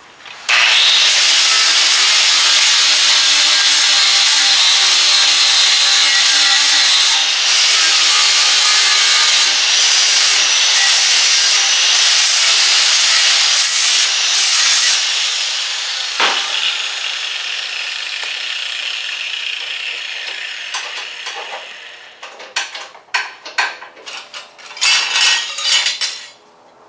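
Angle grinder grinding the rust off a steel bar down to bright metal, a loud steady harsh grinding for about fifteen seconds with a brief dip about seven seconds in. The noise then fades away over several seconds, and a few metallic clanks of the metal and tools being handled follow near the end.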